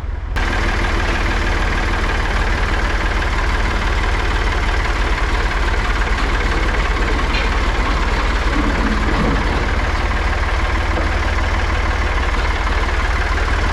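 Farm tractor's diesel engine running steadily at close range, coming in sharply about half a second in.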